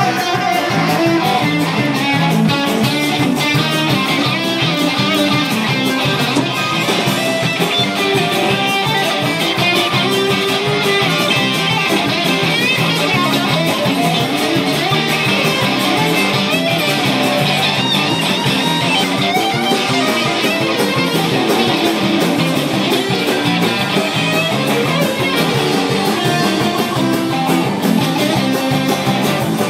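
Guitar music: a fast run of plucked notes going on without a break.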